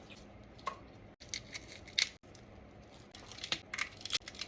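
Irregular sharp clicks and light taps over low background noise, with the sound cutting out briefly twice.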